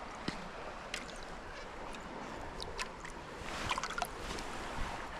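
Small creek running, with a few brief splashes and drips close by.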